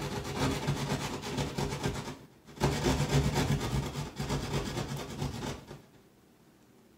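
DeWalt jab saw sawing through drywall in quick back-and-forth strokes. It pauses briefly about two seconds in, saws again, then stops a little over a second before the end.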